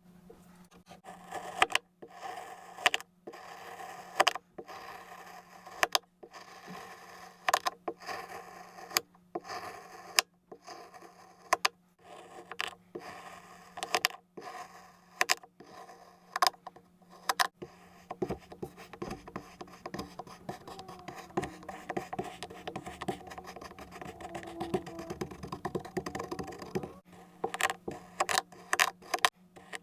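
A knife cutting through kinetic sand, with a sharp tap about every second or so, then a stretch of soft, dense scraping and crumbling, then a quick run of taps near the end. A faint steady low hum runs underneath.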